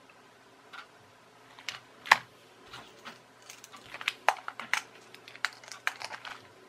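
Light plastic clicks and snaps from a small hard-plastic clockwork toy's shell being handled and prised apart into its two halves. There are scattered clicks, a sharper one about two seconds in, and a quick run of clicks over the last few seconds as the halves come apart.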